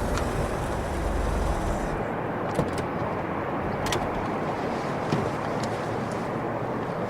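Steady noise of a car and its surroundings, with a heavier low rumble for the first two seconds, and a few short knocks or clicks scattered through it.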